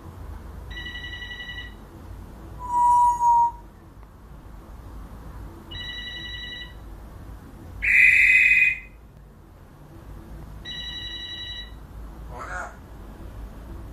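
African grey parrot imitating a telephone ringing: three ring bursts about five seconds apart, each about a second long. Between them come a short whistle about three seconds in and a louder shrill call about eight seconds in.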